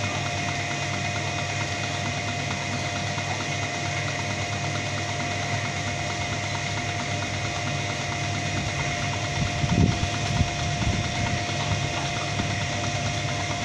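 A steady machine hum with a constant whine running underneath, unchanging in pitch; a few low bumps about ten seconds in.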